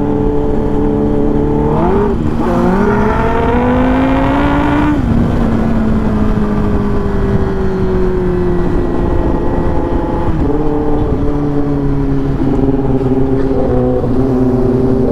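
Kawasaki Ninja ZX-10R inline-four engine heard from the saddle with wind rush. The engine note climbs under acceleration from about two seconds in, drops suddenly at a gear change around five seconds, then eases off and settles into a steady cruise.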